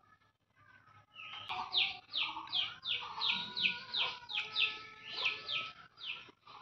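A bird chirping rapidly: a string of short, high, downward-sliding chirps, about three a second, starting about a second and a half in, with fainter lower calls beneath them.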